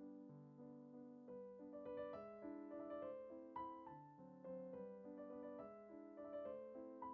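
Quiet background piano music: a gentle, flowing melody of soft notes.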